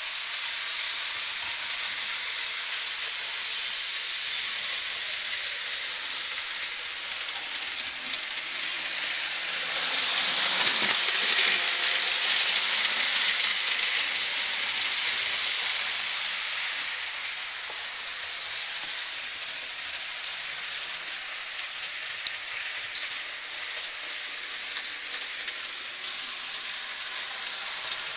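Model trains running on the layout's track: a steady rushing hiss of small wheels and motors on metal rails, growing louder for several seconds near the middle and then settling back.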